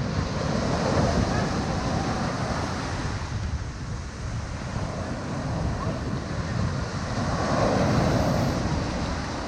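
Wind buffeting the microphone over a steady rush of water, swelling louder about a second in and again near the end.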